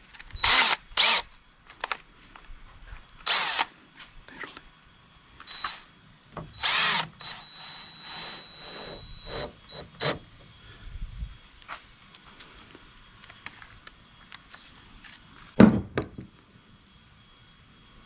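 Cordless drill running in several short bursts, driving the panel screws with its clutch torque set low so as not to strip them, with a steady high whine for a few seconds in the middle. A single sharp knock comes near the end.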